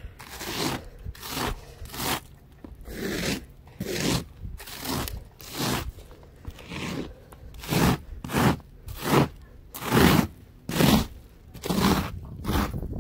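A plastic snow brush sweeping and scraping packed snow and ice off a car's windshield in repeated strokes, about one and a half a second, each a crunchy scrape. The strokes grow louder about two thirds of the way in.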